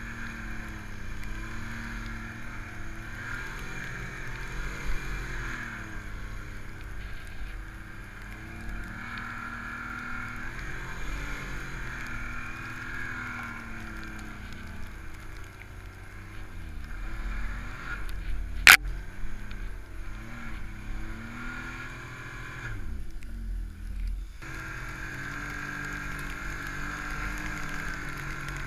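Ski-Doo MXZ Renegade snowmobile's 1200 4-TEC four-stroke engine under throttle in deep powder, its pitch rising and falling as the rider works the throttle. A single sharp click about two-thirds of the way through.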